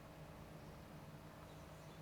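Faint snoring of a sleeping two-month-old pet, barely above a steady low hum.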